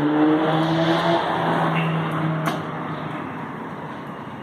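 A motor vehicle's engine passing by, its note rising a little in the first second and then fading away.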